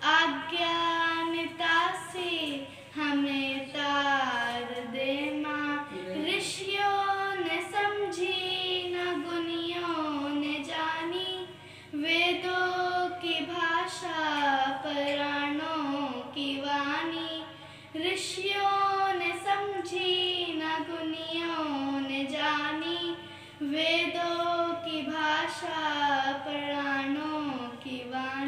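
A young girl singing a Hindi devotional song into a handheld microphone, long held, gliding notes in phrases with short breaths about every six seconds.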